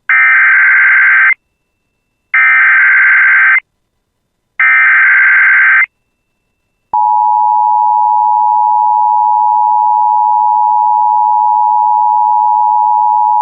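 Emergency Alert System header: three identical bursts of shrill warbling data tones (the SAME digital header), each about a second long with short gaps. About seven seconds in, the steady EAS attention tone begins and holds.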